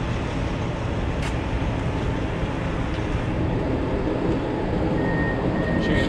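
Steady low rumble of an idling vehicle engine. A single click comes a little over a second in, and a steady high-pitched tone starts about five seconds in.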